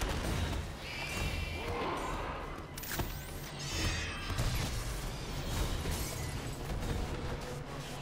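Horror-action film soundtrack: a dark score over a low pulsing rumble, mixed with creature fight sound effects. There are whooshes, a few high cries, and a sharp crack about three seconds in.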